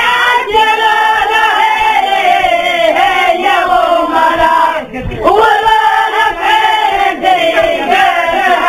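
A group of women's voices singing a Tunisian wedding song together, long held notes that waver and slide down at the end of each phrase, with a brief break for breath about five seconds in.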